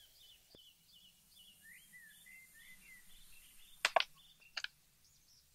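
Small birds chirping in a quick run of short calls, then two sharp clicks about four seconds in, half a second apart, louder than the birdsong.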